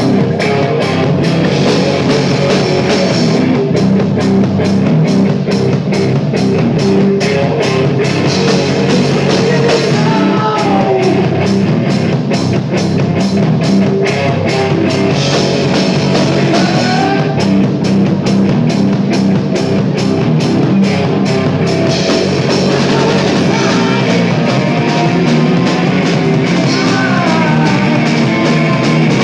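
Live heavy rock band playing: distorted electric guitar over a drum kit, with steady, evenly spaced cymbal strokes, loud throughout.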